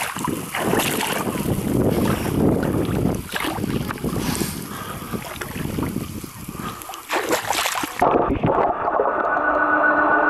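Sea water sloshing and splashing over a camera held at the surface, with wind on the microphone. About eight seconds in, the camera goes under and the splashing cuts off; a muffled, steady whine of a sea scooter's electric motor comes through the water.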